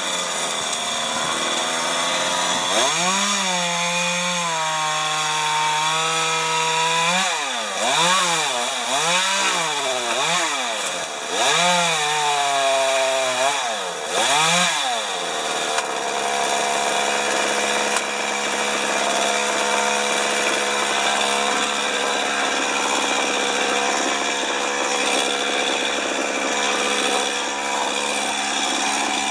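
Chainsaw running, its engine pitch rising and falling again and again as it is throttled up and down, then holding a steady pitch for the second half.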